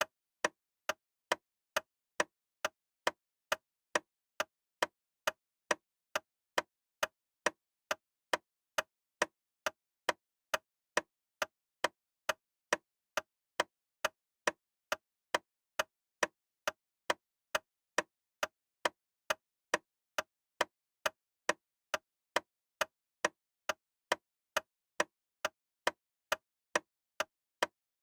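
Loud, sharp ticking, about two ticks a second at a perfectly even pace, with silence between each tick.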